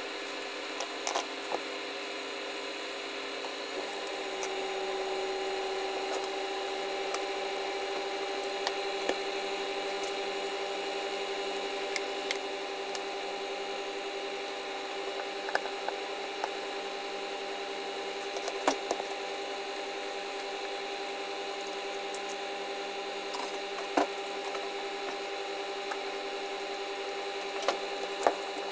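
Sparse light clicks and knocks as the metal gear housing and plastic body of a Bosch angle grinder are handled and worked with a screwdriver, over a steady background hum that grows a little louder about four seconds in.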